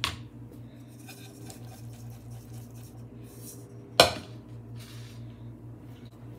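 A knife knocks on a plastic cutting board, then about four seconds in a metal saucepan holding sliced conch is set down hard on a stone countertop with a brief ringing clank. Light scraping and rustling come between the two, over a steady low hum.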